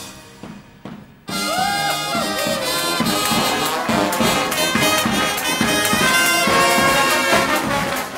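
After a brief lull, a live band with trumpets and a bass drum strikes up loudly about a second in, playing over a steady beat.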